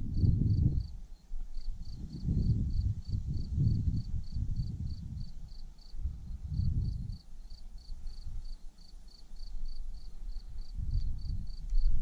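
An insect chirping steadily, about three short high chirps a second, over irregular low rumbling that swells and fades every second or two.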